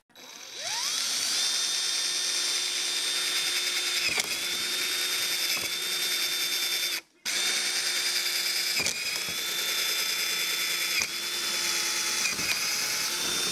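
Electric drill boring into the black plastic of a trash can's pedal mechanism. It spins up about half a second in and holds a steady whine, with a few short dips in speed. It stops briefly about seven seconds in, then starts again.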